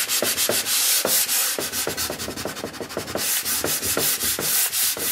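150-grit sandpaper rubbed in quick strokes along the kick zone of a cross-country ski's base, a rasping scratch several times a second. It is roughening the base to a dull texture so the klister binder will bond.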